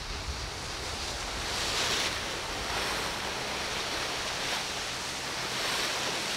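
Rushing, splashing water from inlet waves and a cabin cruiser's bow wake, a steady wash that surges louder about two seconds in and again near the end.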